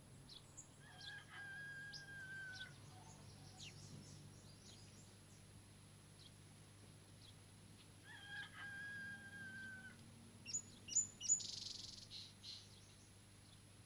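Birds calling faintly: two long, even whistled notes about seven seconds apart, each with short chirps around it, then a quick run of high chirps about ten and a half seconds in. A faint low hum runs underneath.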